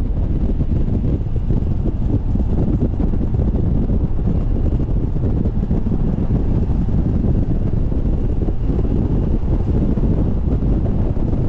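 Steady wind buffeting the microphone over the rumble of a BMW Z4 being driven.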